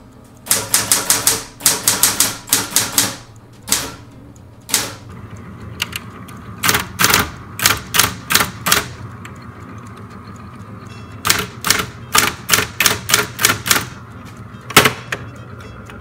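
Sears Celebrity Power 12 electric typewriter being typed on in quick runs of keystrokes, the typebars striking one after another, with a few single strikes between runs, over the steady hum of its running motor. The keys strike and return without jamming, the jam cured by cleaning the dirt out of the mechanism.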